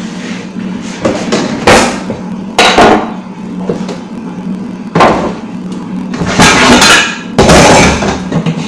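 Pots and kitchen utensils knocking and clattering, with about six loud bangs spread through, over a steady hum.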